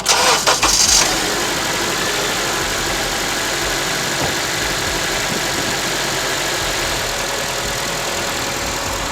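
2005 Honda CR-V's 2.4-litre four-cylinder engine idling steadily under the hood, with a steady rushing noise over it, after a short loud jumble of sound in the first second.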